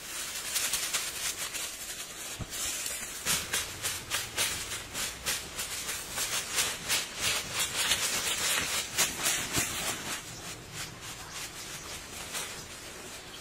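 Loose dry soil being scraped up and thrown by hand onto a grass-thatched shelter: a quick, uneven run of gritty swishes, a few a second, that thins out near the end.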